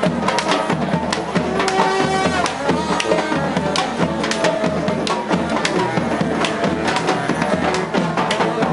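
Live street band playing: held horn notes over busy drumming with regular beats.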